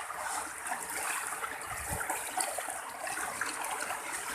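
Swift floodwater from the overflowing Moyog River rushing and flowing, as a steady wash of water noise, with a brief low thud about two seconds in.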